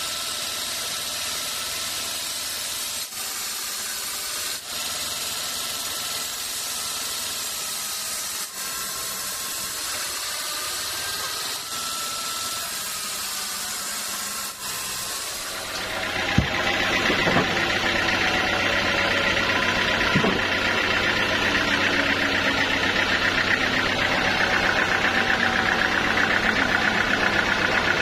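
Sawmill machinery running: a steady hiss for about the first half, then a louder engine running with an even pulse and a couple of sharp knocks.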